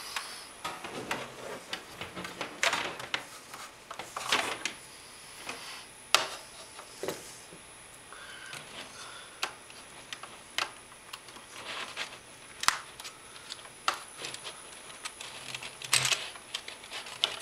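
Irregular plastic clicks and knocks from handling an opened mechanical keyboard and plugging a USB Type B cable into its board.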